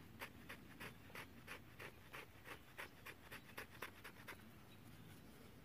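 Faint, evenly repeated scratching strokes, about three a second, that stop about four seconds in.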